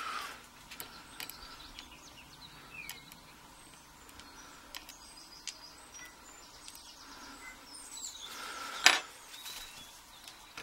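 Faint light clicks and taps of tweezers and tiny brass lock pins being handled on a plastic pin tray, with one sharper tap about nine seconds in. Faint bird chirps in the background.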